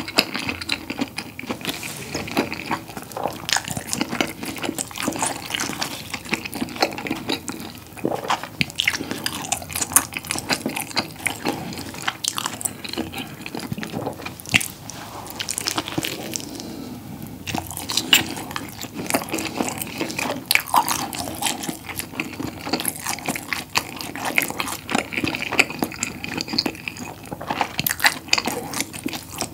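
Close-miked wet chewing of a mouthful of rolled-up whole pizza, with a steady stream of small sticky mouth clicks and smacks.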